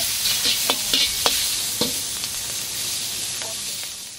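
Squid sizzling as it stir-fries in hot oil in a wok, with the metal wok turner knocking and scraping against the pan a few times in the first couple of seconds. The sizzle eases off somewhat near the end.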